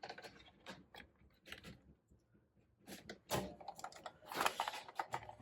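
Light clicks and knocks of small crafting supplies being handled and set down on a tabletop, with a louder cluster of knocks about three and a half seconds in and another a second later.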